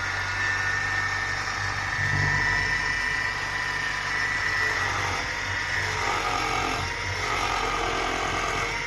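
A 24 V brushless DC geared motor from a photocopier running steadily, with a hum and a high steady whine from the motor and gearbox. Its sound shifts in the second half as a hand grips the output shaft to load it.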